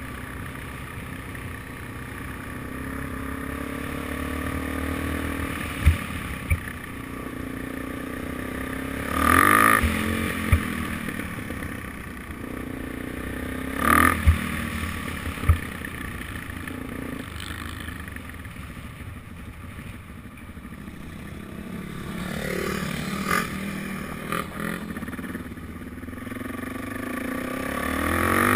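Suzuki DRZ400SM's single-cylinder four-stroke engine running under way, its pitch rising and falling with the throttle. A few sharp knocks come through, two about six seconds in and two more past the middle.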